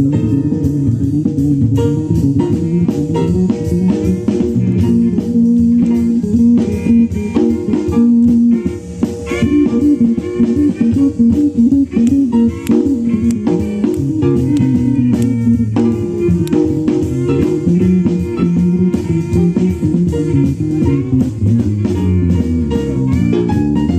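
Small jazz combo playing a swing blues live: plucked low string notes move prominently over steady ride-cymbal time, with piano and violin in the band.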